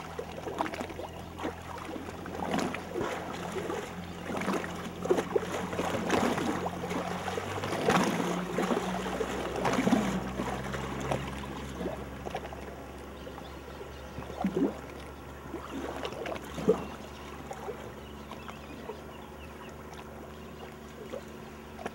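A motor runs steadily with a low hum that shifts lower about eight seconds in, with irregular splashes and knocks over it.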